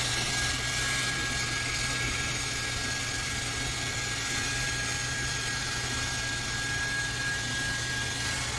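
Hand-held hair dryer blowing steadily, with a thin whine that stops shortly before the end.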